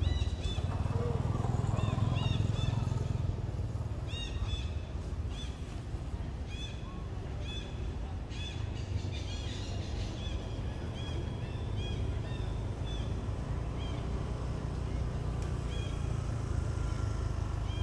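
Outdoor ambience: a steady low rumble, with short, high chirping calls repeating throughout.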